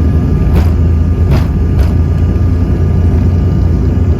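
Airliner engines at takeoff power heard from inside the passenger cabin near the engines: a loud, steady low drone with a faint steady whine above it. Three brief knocks come in the first two seconds.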